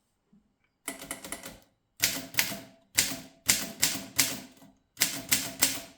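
Groma Model N manual typewriter being typed on: quick runs of sharp keystrokes, the typebars striking the platen, with short pauses between the runs. The typing starts about a second in.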